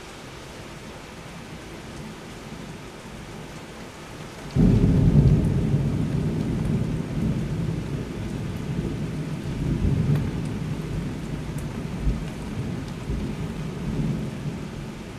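Steady rain, then about four and a half seconds in a sudden clap of thunder that rolls on as a low rumble, swelling again a few times and slowly easing off.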